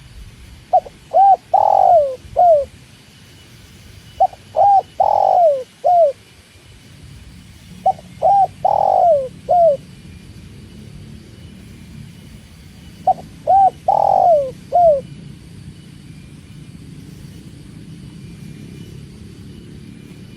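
Spotted dove (tekukur) cooing: four call phrases a few seconds apart, each a couple of short notes, a longer middle note and a short final note. A low steady rumble runs underneath and grows louder from about seven seconds in.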